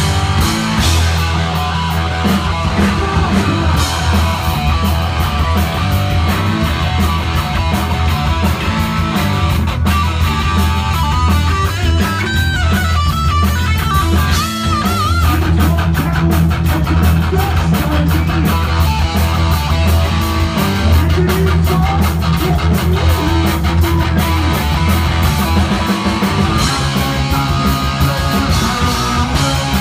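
Heavy metal band playing live, loud and without a break: distorted electric guitar riffing over bass guitar and a fast-hit drum kit.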